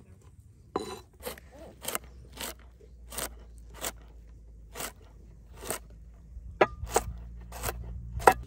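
A heavy forged cleaver dicing raw carrot on a wooden cutting board: crisp crunching cuts, each ending in a knock of the blade on the board, in a quick series of about two a second.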